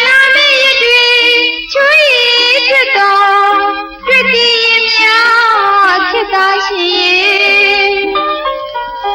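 Burmese song: a woman singing with vibrato over instrumental backing, with a brief break between phrases about four seconds in.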